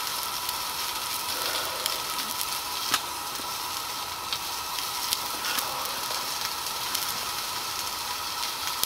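Breakfast sausage frying in a titanium skillet over a gas canister stove: a steady sizzle with a few sharp pops.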